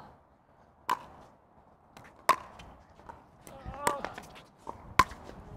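Pickleball rally: sharp pops of paddles striking the plastic ball, three loud ones about a second or more apart, with fainter clicks in between. A player gives a short exclamation about two-thirds of the way through.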